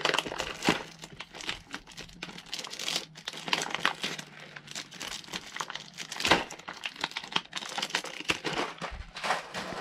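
Crinkly plastic wrapper of a snack packet's card sleeve being pulled and torn open by hand: an irregular run of crackling, with a louder crackle about six seconds in.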